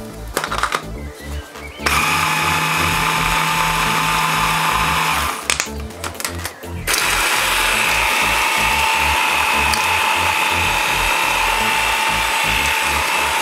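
Electric blender running in two spells, a short one of about three seconds and, after a brief pause, a longer one that carries on to the end, with a steady whine over the noise. It is grinding walnuts, sponge biscuits and cinnamon sugar dry into a nut filling.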